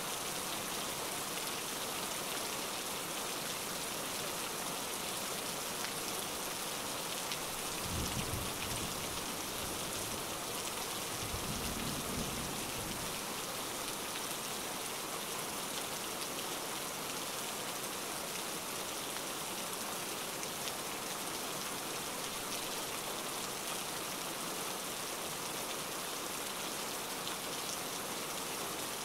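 Steady rain falling, from a rain-and-thunder ambience track, with two short low rumbles about eight and twelve seconds in.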